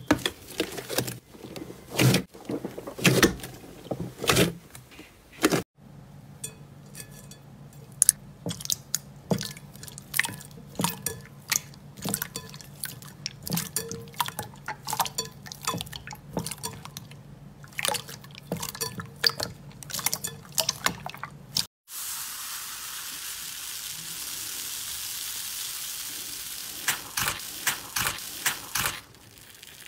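Hands squeezing, stretching and pressing slime: a dense run of wet clicks and pops. About two-thirds of the way in it gives way to a steady hiss for several seconds while a palm presses slime in a bowl, and the clicking returns near the end.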